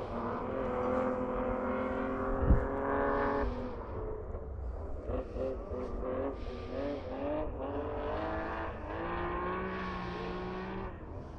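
Rally car engine accelerating hard, its revs climbing steadily for about three seconds, with one sharp thump about two and a half seconds in. The revs then drop suddenly as the driver lifts off, rise and fall briefly several times through gear changes, and climb steadily again near the end.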